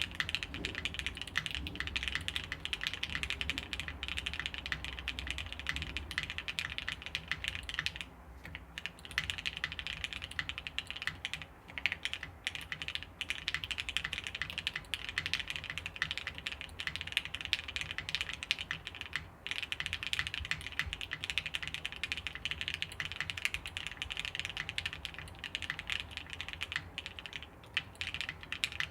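Fast, continuous typing on a plateless, top-mounted custom mechanical keyboard (VLKBD Fingergun TKL prototype) with Gateron Oil King linear switches and GMK keycaps. It is a dense run of keystrokes and spacebar hits, with a few short pauses.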